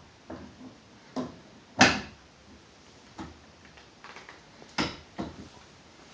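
Sharp metal clicks and knocks from a torque wrench on an AR-15 barrel nut being torqued to 25 foot-pounds, the loudest about two seconds in and another about five seconds in, with lighter taps between.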